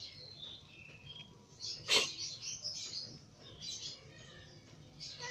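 Frightened kitten hissing in short breathy bursts, with one sharp spit about two seconds in that is the loudest sound.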